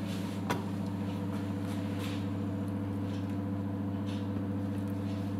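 A steady low hum, with one light click about half a second in and a few faint soft taps of a slotted spatula as pieces of boiled flounder are lifted from a frying pan onto a plate.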